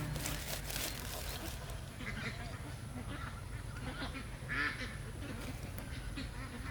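Ducks quacking, a scatter of short calls with the loudest about four and a half seconds in, over a steady low background rumble.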